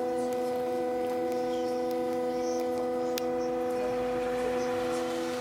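Steady electrical hum of a trolleybus's traction and converter equipment: several fixed tones held level without rising or falling, with a single sharp click about three seconds in.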